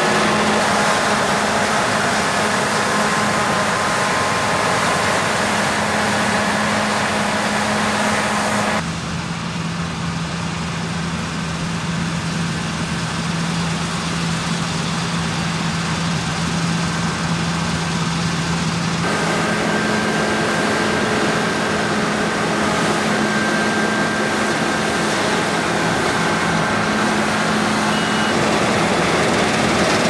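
Claas Lexion 8800 combine harvester running steadily while harvesting wheat: a constant engine and threshing drone with a steady hum. The drone drops slightly in level and pitch about nine seconds in and comes back up near nineteen seconds.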